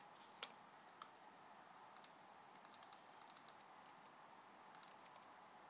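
Faint, scattered computer keyboard keystrokes and clicks over a low steady hiss, with a quick run of several about halfway through.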